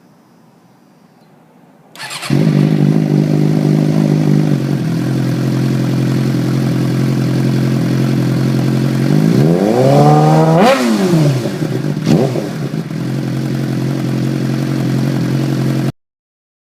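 2006 Suzuki GSX-R600's inline-four engine starting through a newly fitted M4 GP slip-on exhaust. It catches about two seconds in and settles from a fast idle to a steady idle. Past the middle it is revved once up and back down, then blipped briefly, and idles until the sound stops abruptly near the end.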